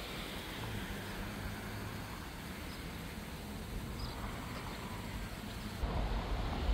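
Steady low hum of a vehicle running, with a low rumble that grows louder about six seconds in.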